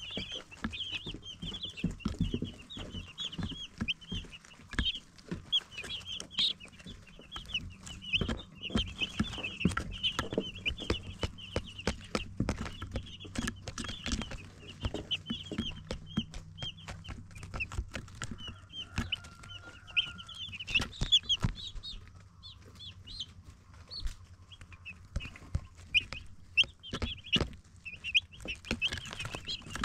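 A group of baby chicks peeping continuously with many short, high chirps, mixed with frequent sharp taps and clicks and a faint steady low hum underneath.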